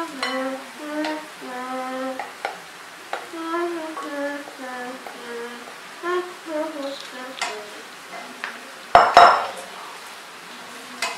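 A wooden spatula knocking and scraping against a plate and a ceramic frying pan as food is scraped off the plate into the pan, with a louder clatter about nine seconds in. A woman hums a tune in held notes over the first part.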